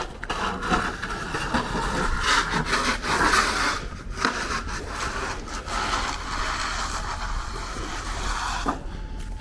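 Snow shovels scraping over snow-covered pavement in long, rasping strokes, with a couple of short pauses.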